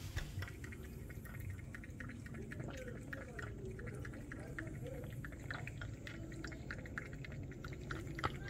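Cat licking a shallow ceramic food dish: a quick, continuous run of small wet lapping clicks from its tongue.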